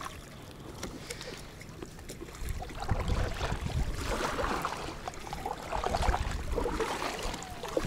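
Sea water splashing and sloshing, louder through the middle, with wind rumbling low on the microphone.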